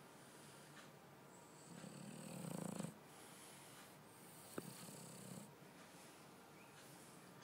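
Sedated Shar-Pei dog snoring faintly: one long noisy breath building up about two seconds in, and a weaker one later. A single sharp click comes about halfway through.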